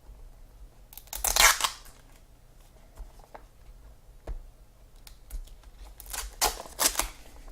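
Packaging of a sealed trading card box being torn open by hand: a loud ripping tear about a second in, then two shorter rips near the end, with light handling noise between.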